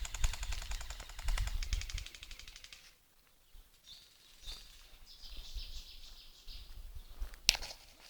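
Airsoft gun firing a full-auto burst of rapid, even clicks that stops about three seconds in. Faint high chirping follows, and a single sharp crack comes near the end.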